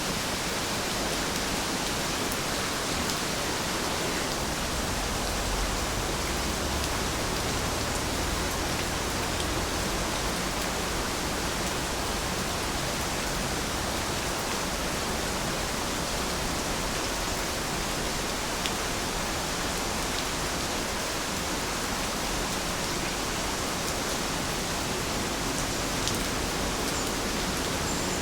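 Steady rain falling, a dense even hiss with faint scattered drop ticks.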